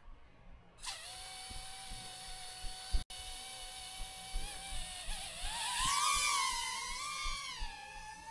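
Motors of a BetaFPV Pavo20 FPV drone spinning up about a second in and whining at a steady high pitch. From about the middle the pitch swings up and down with the throttle.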